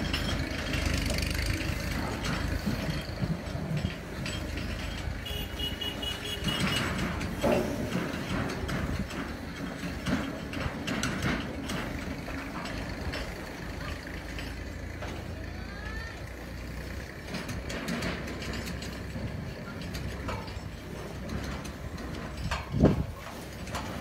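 A steady low rumble like an idling engine, with scattered clanks and knocks and a brief high-pitched beeping about a quarter of the way in. A single loud thump about a second before the end.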